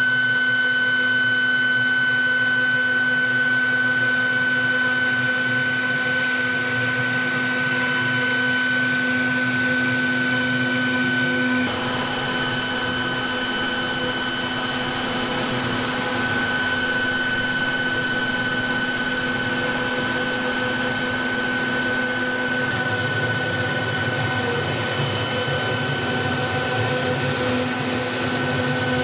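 CNC router spindle running with a steady high whine while its bit carves a wooden relief panel. The sound shifts slightly about twelve seconds in.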